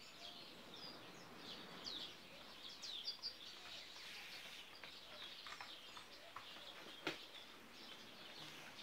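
Faint chirping and short calls of small birds over quiet room tone, with one sharp click about seven seconds in.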